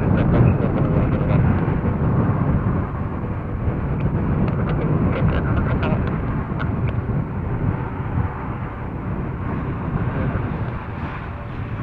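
Airbus Beluga XL's twin Rolls-Royce Trent 700 jet engines running with a steady low rumble, fading slightly near the end.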